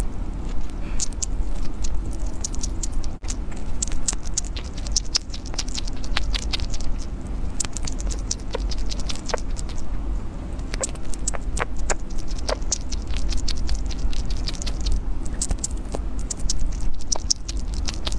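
Sugar glider gnawing and chewing a stick-shaped treat close to the microphone: quick, irregular crunchy clicks and crackles, over a steady low hum.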